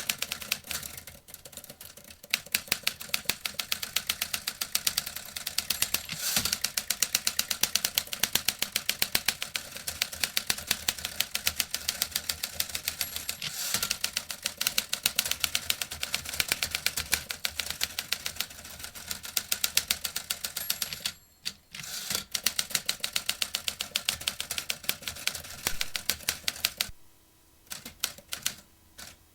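Vintage manual typewriter typed on at a fast, steady pace, a rapid run of crisp key strikes. Typing breaks off briefly a little past two-thirds through, and a few slower, scattered strokes follow near the end.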